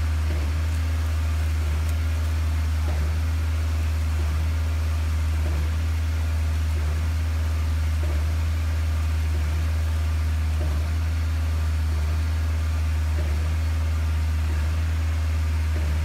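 Concrete pump's engine running steadily, a deep drone, while concrete is pumped through the hose into a footing trench; a faint knock comes about every two and a half seconds.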